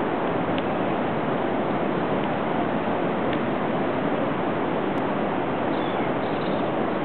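Steady wash of ocean surf, an even noise with no separate wave breaks standing out.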